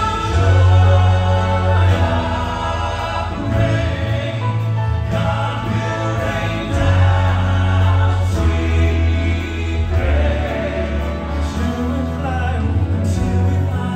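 Male gospel quartet singing in close harmony into handheld microphones, amplified, over music with a strong, steady bass.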